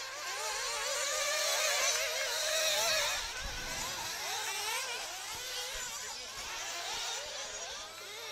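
Several 1/8-scale nitro RC buggy engines buzzing at high revs, overlapping, their pitches rising and falling as the cars accelerate and brake around the track.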